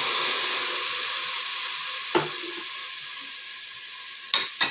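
Ground tomato purée sizzling in hot oil in a pot, the sizzle slowly dying down as it cools the oil. A light tap about two seconds in and two sharp knocks near the end come from the spatula striking the pot as the stirring starts.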